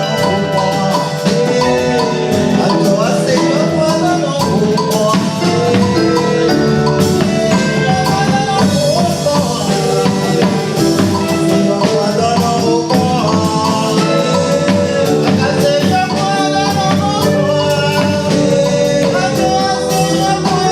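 A song playing: a singing voice over steady percussion and other instruments.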